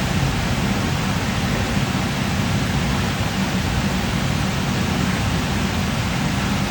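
Large CNC machining center running under power: a steady low hum with an even hiss over it.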